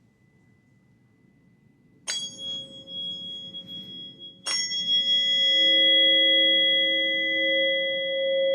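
Tuning forks struck twice, about two and a half seconds apart: each strike gives a sharp click followed by long, steady ringing tones. A lower tone joins in about five and a half seconds in.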